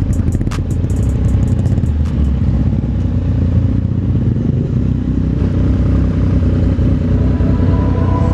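Yamaha MT-09's inline-three engine with an Arrow exhaust idling steadily, with a sharp click about half a second in.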